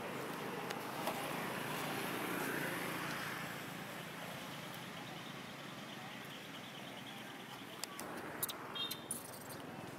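A motor vehicle passing by: a steady rushing noise that builds to a peak a couple of seconds in, then slowly fades. A few light clicks and one brief high chirp come near the end.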